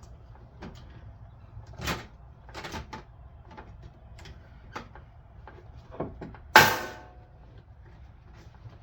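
Hands working on the heater and its fuel hose fittings: scattered clicks and knocks, then one loud metallic clank with a short ring about six and a half seconds in.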